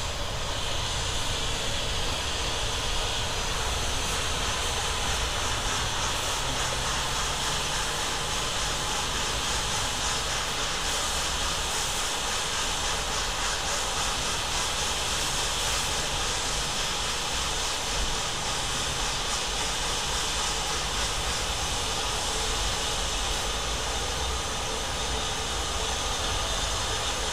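Rebuilt Bulleid West Country class steam locomotive 34046 Braunton hissing steam in a steady roar, with a low rumble underneath.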